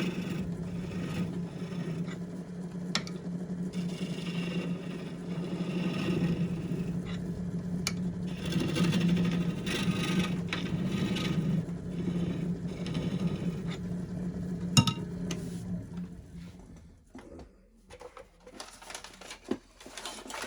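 Wood lathe running with a steady hum while a turning tool scrapes and cuts into a spinning wooden blank, with one sharp knock near the end; the lathe then stops and the sound dies away.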